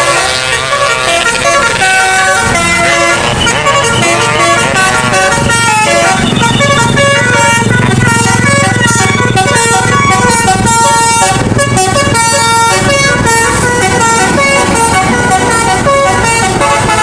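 A bus's multi-tone 'telolet basuri' musical air horn playing a quick melody of short stepped notes. The bus engine rumbles louder for several seconds in the middle.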